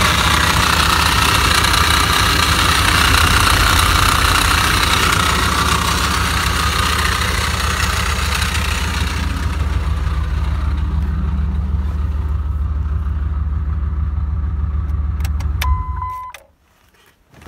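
A 2003 Dodge Ram 1500's 5.7 L Hemi V8 running, making a weird noise its owner cannot identify; a rushing sound above the engine's hum fades out about halfway through. Near the end the engine is switched off and stops within about half a second, with a short electronic chime as it dies, then a few light clicks.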